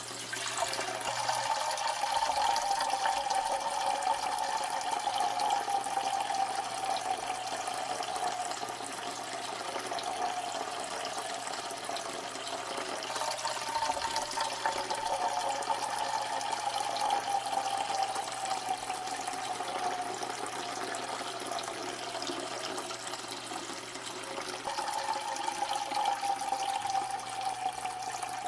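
A steady stream of liquid pouring and splashing into water. Its splashing tone sags slowly in pitch and starts over about every twelve seconds, like a looped recording.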